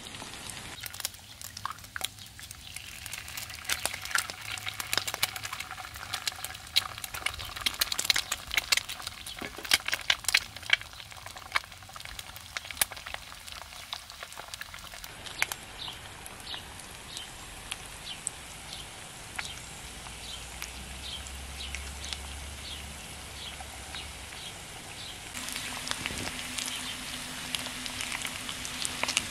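Rain beginning to fall on a tarp: irregular drops patter and tick on the fabric over a light hiss, thinning out partway through. A steady low hum joins near the end.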